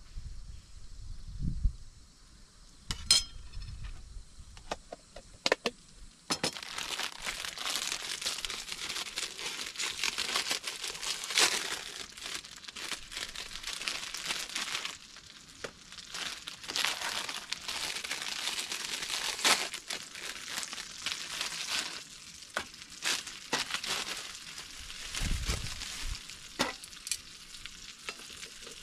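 Food sizzling in a hot pan. It starts suddenly about six seconds in, after a few sharp clicks, and crackles on unevenly, swelling and easing.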